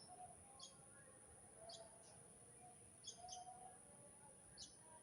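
Faint short bird chirps, a single or double chirp every second or so, over quiet room tone.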